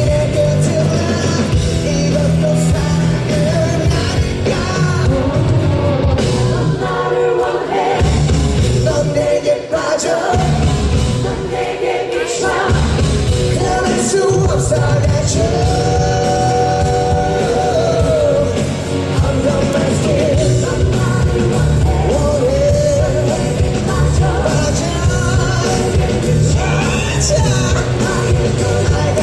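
Live rock band playing loudly with a male lead singer belting the melody.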